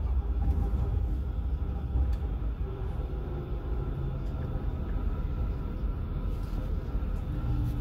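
Tram running along the line: a steady low rumble of wheels and track, with a whine that begins to fall in pitch near the end.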